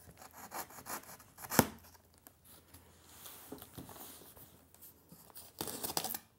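Serrated knife slitting packing tape along the seams of a cardboard box: irregular scraping and tearing, with a sharp knock about one and a half seconds in and a louder stretch of scraping and tearing near the end.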